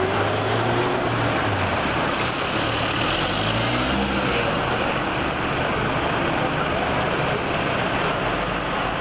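Steady road traffic noise at a city junction, with a vehicle engine running low in the first couple of seconds and another passing about halfway through.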